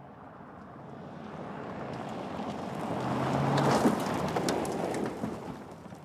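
Mercedes-Benz GLC SUV speeding past on a dirt track: engine and tyre noise swell to a peak about four seconds in, with gravel and stones clattering as it passes, then fade away.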